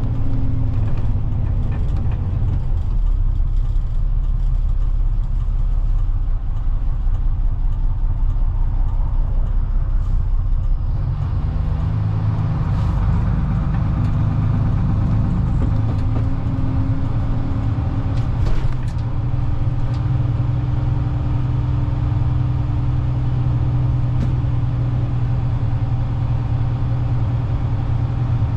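Bedford YMQ coach's diesel engine running on the move, heard from inside the cab, with a steady drone; its note changes about eleven seconds in.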